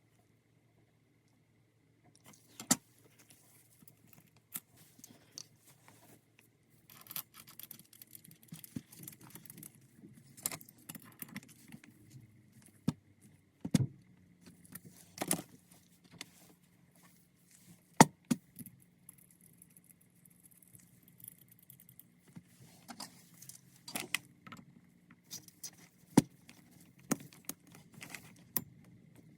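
Irregular metallic clinks and taps of small metal parts and tools being handled, over a faint steady low hum.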